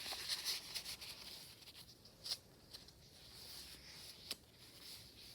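Faint rustling of paper pages and flaps being handled in a thick handmade journal, with a few light clicks or taps, two of them sharper about two and four seconds in.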